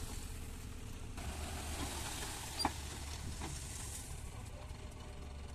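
Sonalika 35 DI tractor's diesel engine running steadily with a low hum while soil slides out of its tipped trolley with a rushing hiss. A single sharp knock comes about halfway through.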